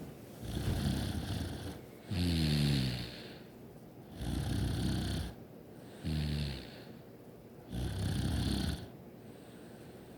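A person snoring in a slow breathing rhythm, about one breath every four seconds. Breathy noisy breaths alternate with two pitched, rattling snores that dip slightly in pitch.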